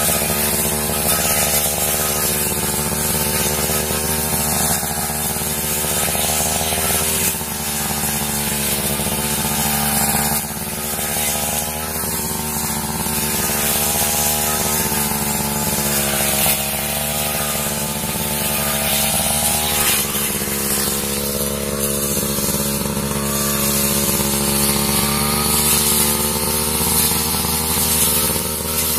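Backpack brush cutter's small petrol engine running steadily at cutting speed, its pitch wavering slightly up and down as the head swings through dense weeds.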